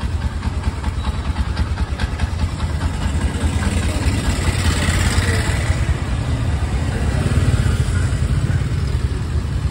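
Motorbike and tuk-tuk engines running close by in street traffic, a steady low rumble. A vehicle swells past about five seconds in.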